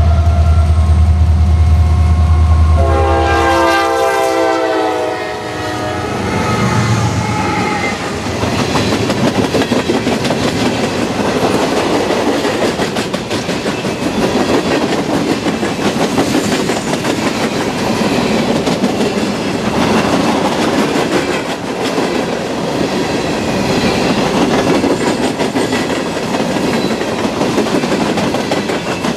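Norfolk Southern freight train led by an EMD GP60 and two more diesel locomotives. The locomotive engines run loud at first, then a horn chord sounds for about three seconds, a few seconds in. After that a long string of hopper cars rolls past, its wheels clattering over the rails.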